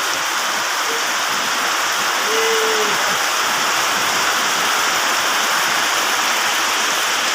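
Heavy tropical downpour with water running and pouring off it, a steady dense rushing noise.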